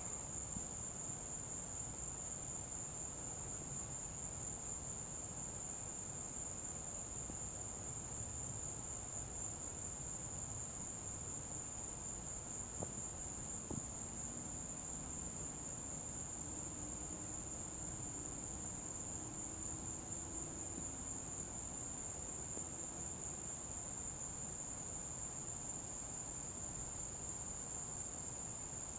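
Crickets trilling in one unbroken high-pitched band, over a faint low hum of background noise; no thunder is heard.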